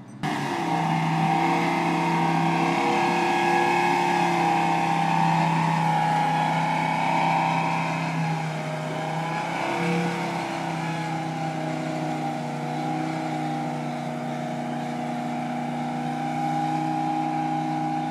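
The Unimog's V8 engine running under load as the truck drags a brush pile on a rope, a steady engine note that wavers slightly in pitch.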